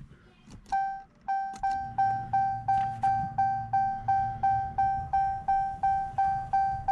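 Dodge Challenger's dashboard warning chime: one note repeating about three times a second, each stroke fading quickly. It starts with a click under a second in, and a low steady hum runs underneath.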